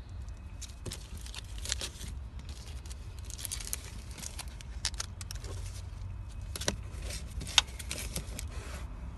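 Paper envelope and booklet rustling and crinkling as they are handled, with scattered sharp clicks, over a steady low rumble.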